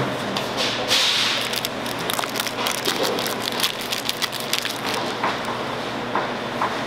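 Rapid crackling and light clicks from a plastic tray lining and a metal baking tray, as gloved hands handle a slab of set jelly sweets. Under it runs a steady hum of factory machinery.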